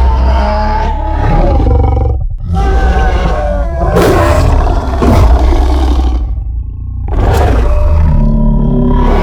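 Rancor monster sound effect: three long, low, growling roars with short breaks between them.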